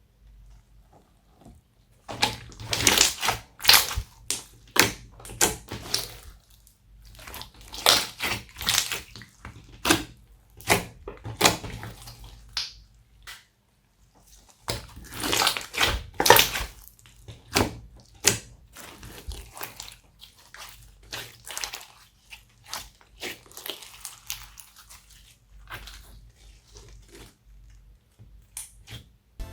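Slime being squished and kneaded by hand: irregular bursts of wet clicks and squelches, with short pauses near the start and about halfway.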